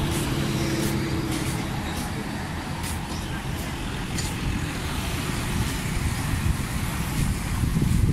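Road traffic running past: a steady low rumble of vehicle engines and tyres, with one engine's hum standing out for the first second or so. Faint voices mix in.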